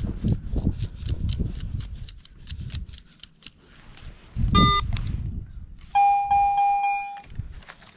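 Crunching and scraping of digging in soil, then two electronic metal-detector tones: a short one about four and a half seconds in, and a longer steady one of about a second starting at six seconds.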